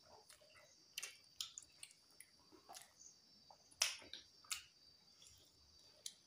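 Mouth-close eating sounds: wet chewing and lip smacks with fingers squishing through rice. Scattered short sharp clicks, the loudest a little under four seconds in, over a faint steady high whine.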